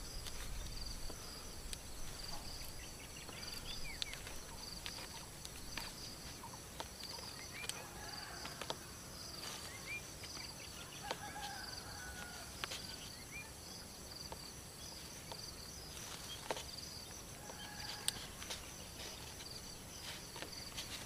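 A steady high-pitched, pulsing insect chorus, with a few short bird chirps through the middle. Scattered sharp clicks and taps come from gloved hands handling the plastic sprinkler head and hose fitting.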